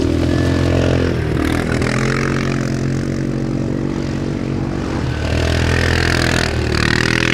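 Quad bike (ATV) engines running under load, revving up and easing off so the engine pitch rises and falls several times, as the quads come down a dirt slope and one passes close by.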